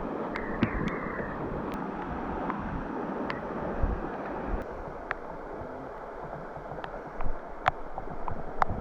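Steady rush of flowing river water mixed with wind on the microphone, with scattered light ticks.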